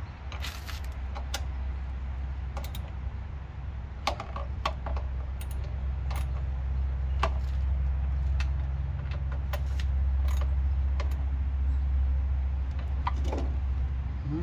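Small metal parts and tools clicking and clinking as they are handled, a dozen or more separate sharp clicks, over a steady low rumble.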